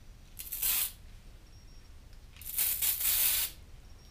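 Aerosol spray can hissing in two bursts, a short one and then a longer one about two seconds later, spraying lubricant onto a ball hone before honing the cylinders.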